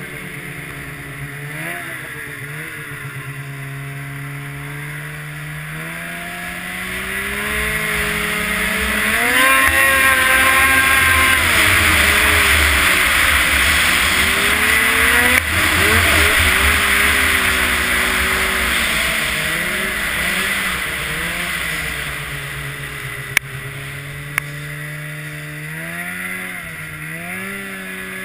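Snowmobile engine revving up from a low, steady note and running loud at speed for several seconds with a rushing noise, then easing back off. Two sharp clicks near the end.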